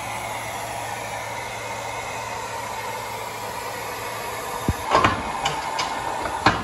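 Steady workshop background noise, then a low thud and a short cluster of clicks and knocks about five seconds in, a few lighter ticks, and one more sharp knock near the end.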